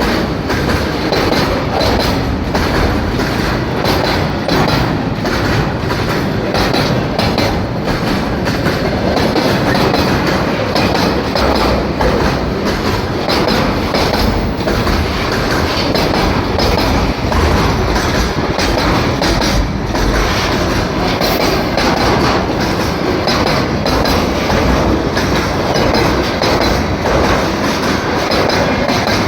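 Freight train wagons rolling past at speed, their wheels clattering steadily over the rail joints in a continuous clickety-clack.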